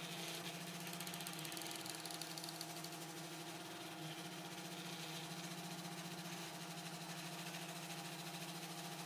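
3D printer with a direct-granule pellet extruder running a print: its stepper motors give a faint, steady hum of several held tones.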